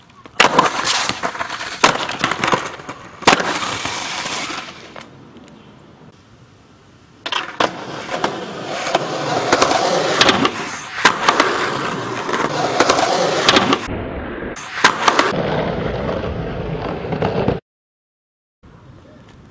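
Skateboard wheels rolling on pavement, broken by repeated sharp clacks and slams as the board hits the launch ramp and the ground during attempts and bails. It comes in several separate bursts with abrupt cuts, and stops dead near the end.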